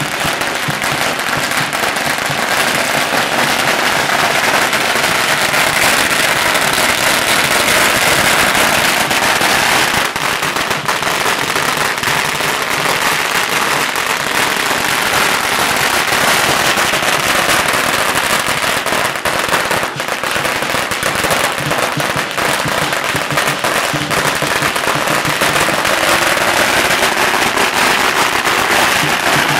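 A long string of firecrackers going off in a continuous, rapid crackle of loud pops without a break.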